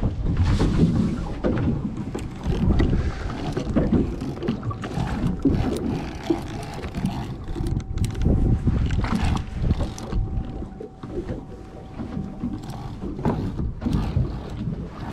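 A boat rocking at sea: wind buffeting the microphone and water sloshing against the hull, with scattered knocks and clicks. A faint steady whine runs through the middle several seconds.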